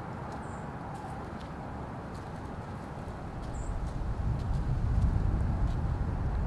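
Steady low outdoor noise that swells into a louder rumble about halfway through, with two faint high chirps.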